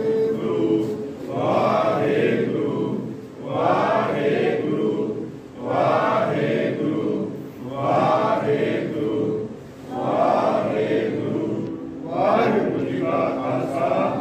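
A group of men chanting a Sikh prayer together, one short phrase about every two seconds.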